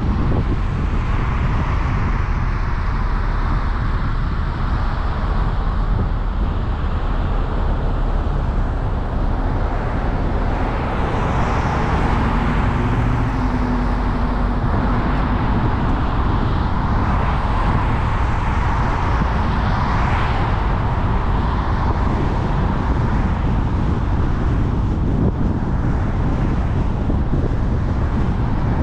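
Steady road noise from a car driving along a multi-lane road: tyre and wind rush over a heavy low rumble, swelling and easing now and then as other traffic goes by.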